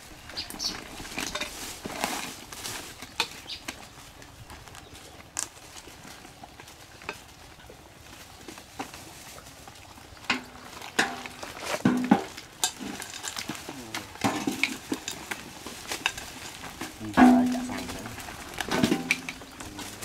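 Small fish being sorted by hand and tossed into metal and plastic basins: irregular clicks, knocks and rattles. Short bursts of voice come through now and then, the loudest near the end.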